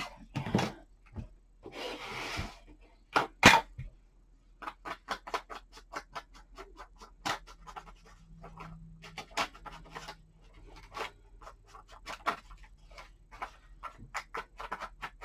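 Rapid dabbing taps of an ink blending tool on a sheet of paper, several short taps a second, after some paper rustling and a sharp click about three and a half seconds in.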